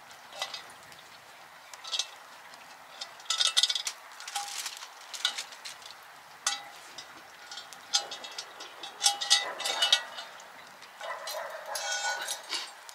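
A utensil clinking and scraping against a black cast-iron pot as cooked vegetables are emptied out, in irregular bursts with short metallic rings. There is a longer run of scraping and clinking near the end.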